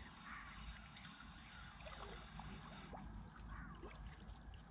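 Faint riverside night ambience: water trickling and lapping, with a few short faint calls and rapid high ticking that fades out about three seconds in.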